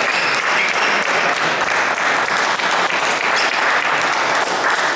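Hall audience applauding with dense, steady clapping.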